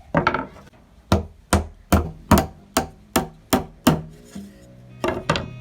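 Hammer striking small nails into thin wooden slats: a steady run of about ten sharp knocks, two to three a second, then a pause and two more knocks near the end.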